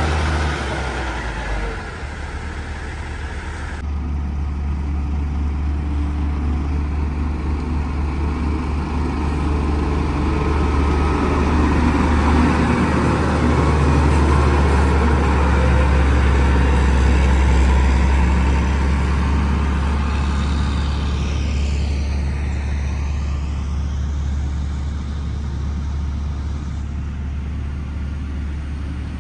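Heavy road-construction machine's diesel engine running steadily with a deep drone, growing louder toward the middle and easing off again, with an abrupt change in its sound about four seconds in.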